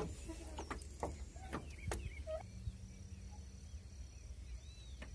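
Wind rumbling on the microphone, with a few sharp knocks of handling in the first two seconds and faint bird calls in the background.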